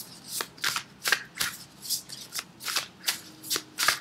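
A deck of tarot cards being shuffled by hand, in short even strokes about three times a second.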